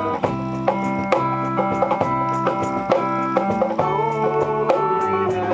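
Live band music: a steel-string acoustic guitar strummed over an electric bass line, with regular percussion hits.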